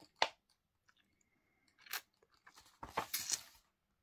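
Printed paper sheets rustling and crinkling as the pages of a kit chart are handled and turned. The sound comes in a few short bursts, the longest cluster about three seconds in.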